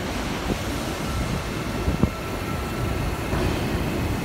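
R68A New York subway train rolling slowly along the platform: a steady low rumble of wheels on rail with a faint motor whine, and a single sharp clack about two seconds in.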